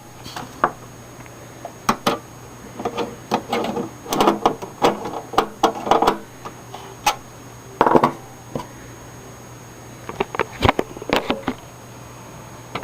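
Small screws being driven into a computer's drive bay with a hand screwdriver: irregular clicks, taps and scrapes of metal parts being handled, over a steady low hum.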